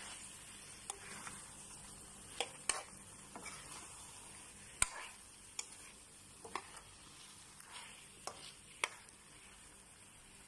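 Metal spoon stirring chicken pieces in thick tomato sauce in a nonstick frying pan, with a dozen or so irregular clicks and scrapes of the spoon against the pan over a faint sizzle.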